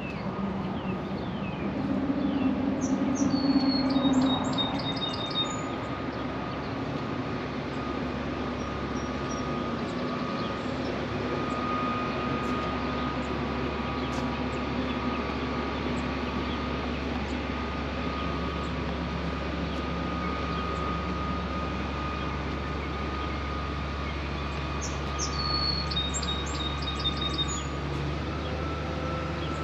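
A songbird sings a short phrase of quick high notes twice, a few seconds in and again near the end, over a steady low background hum.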